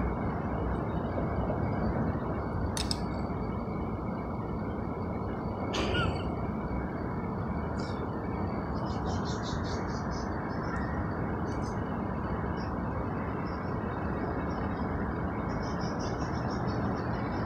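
Steady urban outdoor background noise, a low traffic-like rumble, with two sharp clicks about three seconds apart and brief faint high chirps later on. The mating cats make no sound of their own.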